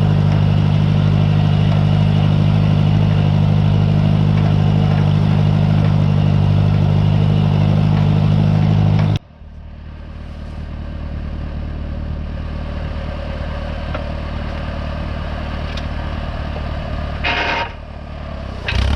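Tractor engine running steadily with a strong low hum. It drops off abruptly about nine seconds in, leaving a quieter, lower engine drone, with a short burst of noise near the end.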